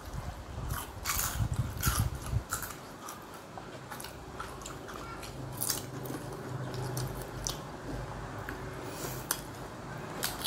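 A person chewing deep-fried snack food, with scattered crisp crunches and mouth clicks, over a low steady hum.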